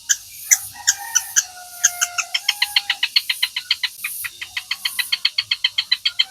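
Long-tailed shrike (cendet) singing a varied, mimicking song. It gives sharp separate notes at first, then about two seconds in breaks into a rapid even run of short notes, about six or seven a second, over a few thin held whistles.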